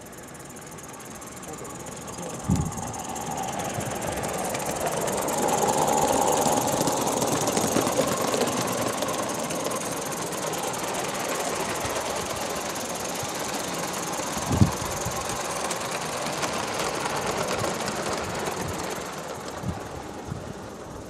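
Gauge 1 live-steam tank locomotive running past with a goods train: fast, even steam exhaust beats and hiss over the clatter of small wheels on the rails. It grows louder over the first six seconds or so, then eases off near the end, with two sharp knocks about two and a half and fourteen and a half seconds in.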